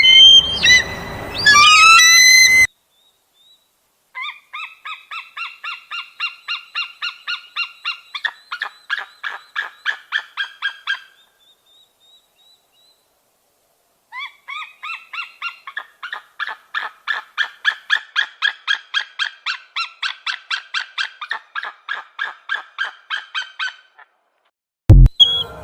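An eagle calling: two long runs of rapid, high piping notes, about four a second, with a pause of a few seconds between them. Loud music plays briefly at the start, and a loud thump comes near the end.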